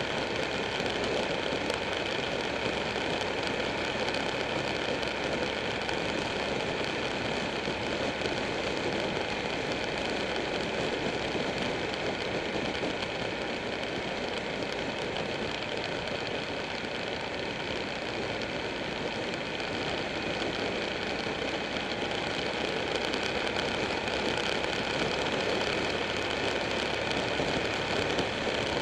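Buell 1125R's V-twin engine running steadily at cruising speed, heard from on board the moving motorcycle with road and wind noise.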